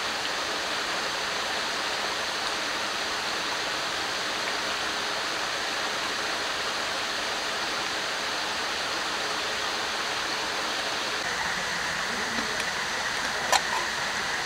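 Steady rushing of river water, with a single sharp click near the end.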